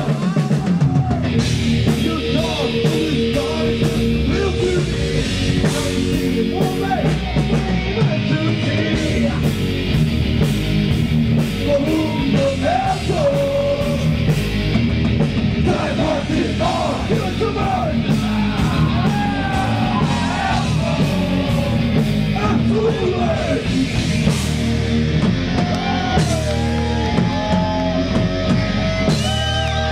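Live heavy metal band playing: distorted electric guitars, bass and a drum beat, with a singer singing and yelling over them.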